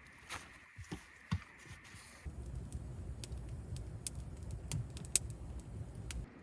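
Scattered light clicks and knocks, a few at a time. From about two seconds in, a steady low rumble sits under them and stops abruptly just before the end.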